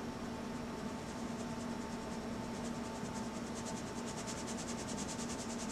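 Flour being sifted through a hand-held wire-mesh sieve: a fast, even rasping rhythm of about nine strokes a second as the sieve is shaken, growing louder after the first second, over a faint steady hum.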